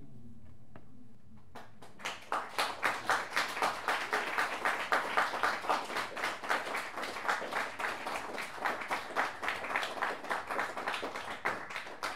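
A last low bowed double-bass note fades out, then from about two seconds in an audience applauds steadily, dense clapping that carries on to the end.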